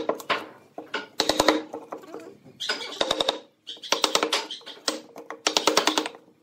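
Wood chisel driven into pine with a wooden mallet, chopping out a mortise: groups of quick knocks with a short ringing tone, about five bursts with brief pauses between them.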